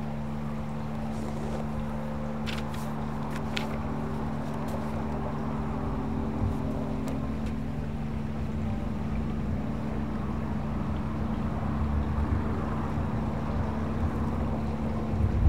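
Steady low hum, with a few faint ticks about three seconds in.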